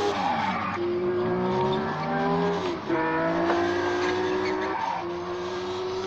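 Children's ride-on kart motor whining steadily as the kart drives. The whine dips briefly three times: about a second in, near the middle, and about a second before the end.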